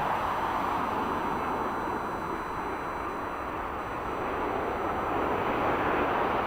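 Jet airliner engine noise on arrival: a steady rushing sound that eases a little midway and swells again near the end.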